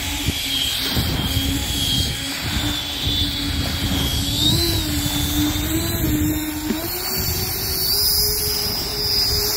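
RC boat's electric ducted fan running with a steady whine that wavers in pitch and steps up slightly near the end, over a rushing noise.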